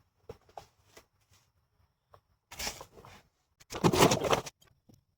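Workshop handling noises: scattered light clicks and taps, then two short rasping, scraping bursts about two and a half and four seconds in, the second one louder.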